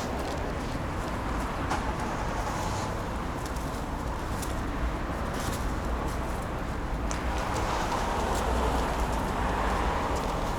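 Outdoor street ambience: a steady low rumble, with scattered light clicks, growing a little louder in the last few seconds.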